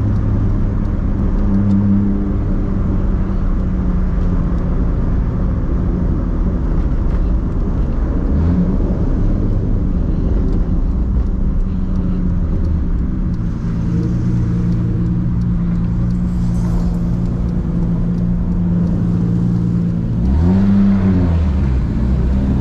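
Big-turbo, straight-piped 2JZ straight-six of a MKIV Toyota Supra cruising at low revs, heard from inside the cabin as a steady drone. The engine note shifts a little about eight seconds in and rises and falls briefly near the end.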